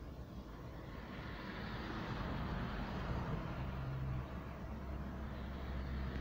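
A car driving along, heard from inside the cabin: a steady low engine hum under tyre and road noise. The road noise grows louder about a second in.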